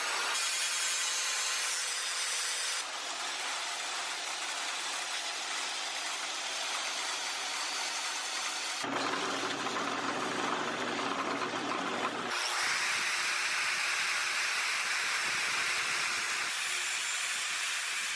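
Workshop power tools running on steel parts: a steady, noisy whir that changes abruptly in character several times, about three, nine and twelve seconds in.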